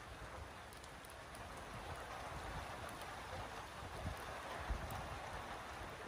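Steady rain falling: an even hiss of drops, with a few brief low rumbles.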